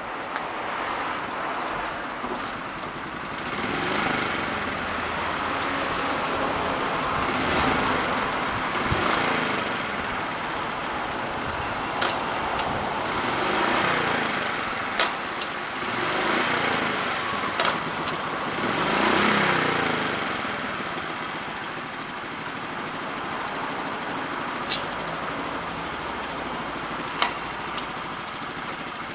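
Honda Super Cub 50's small four-stroke single-cylinder engine running on its stand, its revs rising and falling several times as the throttle is opened and let back, with a few sharp clicks along the way. It is a running check on an old, neglected bike.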